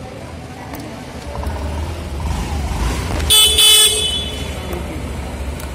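Honda Activa 6G scooter's electric horn sounding two short beeps back to back, over a low rumble: the horn test of a newly fitted battery.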